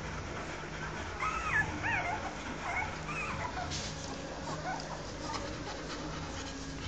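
Newborn rottweiler puppies whimpering in short, high, rising-and-falling squeaks, most of them in the first half, over a low steady hum.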